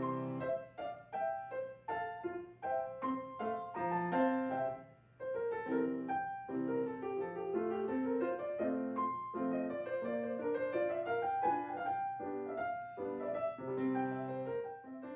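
Solo piano music, a moving melody of separate notes over lower accompanying notes.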